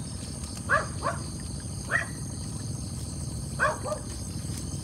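A dog barking: about five short barks, some in quick pairs, spread irregularly a second or so apart.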